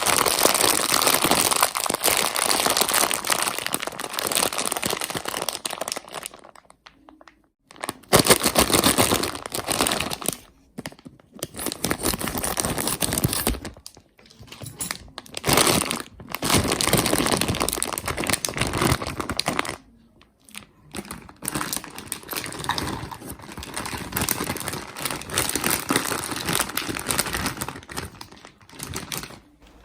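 Plastic sweet wrappers and bags crinkling and rustling as they are handled, in long stretches broken by a few short pauses.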